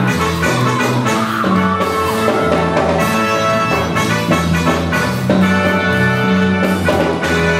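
Live gospel band playing an instrumental break without singing: drums and bass under a sustained lead melody line.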